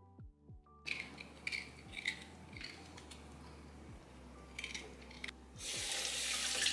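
Kitchen knife scraping and cutting as a piece of ginger is peeled, with short scrapes and clicks and a louder scrape about a second long near the end. Soft background music with a steady beat runs underneath.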